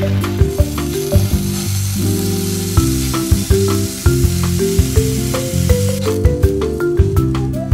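Sauce-coated rice cake and chikuwa skewers sizzling in cooking oil in a nonstick frying pan over low heat, under background music.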